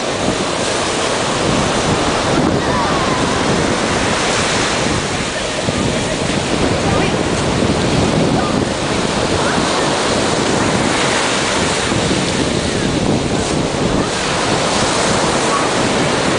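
Sea surf breaking and washing up the beach, mixed with wind buffeting the microphone: a loud, steady rush that swells and eases slightly.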